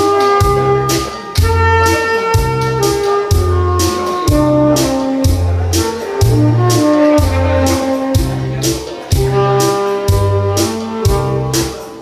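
Saxophone playing a sustained melody over accompaniment with a steady bass and drum beat.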